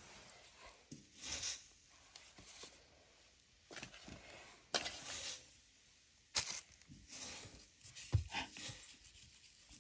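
Soft, intermittent rustling and handling noises as potato halves are pressed onto the inner wall of a clay tandoor oven, with a dull thump about eight seconds in.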